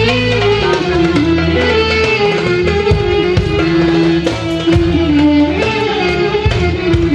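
Live band playing a Balkan-Turkish folk dance tune: a lead melody that slides between notes over electric keyboard, guitar and drum accompaniment with a steady beat.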